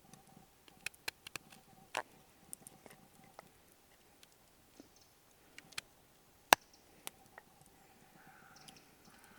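A knife carving a wooden stick into a pot hook: irregular sharp clicks and snicks as the blade cuts away wood, the loudest about six and a half seconds in.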